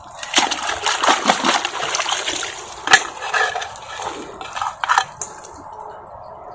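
Gloved hands digging and scooping in wet mud while reaching into a mud crab burrow, with irregular wet squelching and sloshing. There is a sharp knock about three seconds in and a few more near five seconds, then it goes quieter.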